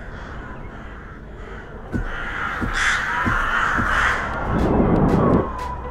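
Crows cawing over a steady hiss of ambience, louder from about two seconds in, with a short rushing whoosh near the end.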